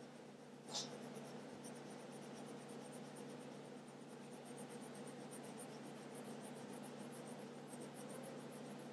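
Pencil scratching on paper in quick back-and-forth hatching strokes, filling in dark shading against the edge of a drawn object, with one sharper, louder stroke just under a second in.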